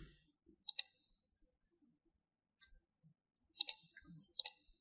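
Sharp clicks of a computer mouse and keyboard: one just under a second in, then two close together near the end, with faint soft knocks between.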